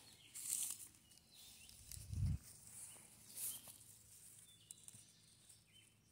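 Faint rustling of grass and brush as someone moves through it on foot: a few brief swishes, with a single low bump about two seconds in.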